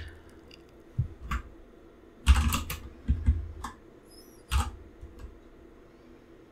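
Computer keyboard typing in short irregular bursts of keystrokes, with pauses of a second or so between them.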